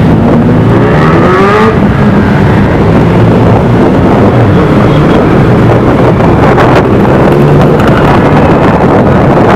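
Sportbike engines running in a group in traffic, loud and steady, with one engine revving up in a short rising whine about a second in.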